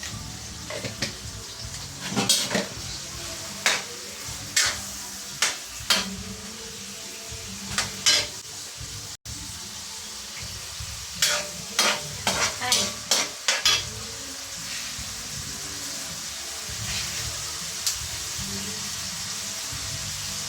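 A utensil scraping and clinking against a pan while stirring food that sizzles as it fries. The clinks come in clusters in the first two-thirds, then only a steady sizzle is left near the end.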